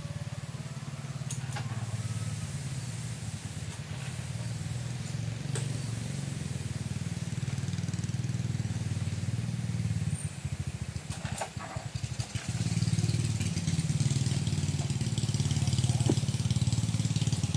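Small engine of a motorized disinfectant sprayer running steadily with a low, fast-pulsing hum that grows a little louder in the second half, with a few brief knocks.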